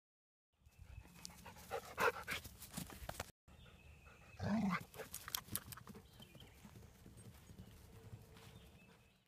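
A dog playing in a yard, panting and giving a few short barks, among scattered knocks and rustles. The sound cuts out briefly a little over three seconds in.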